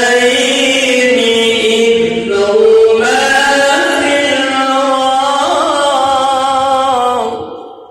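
A man reciting the Quran in the melodic, drawn-out mujawwad style, holding one long ornamented phrase whose pitch steps and wavers. The voice fades out near the end.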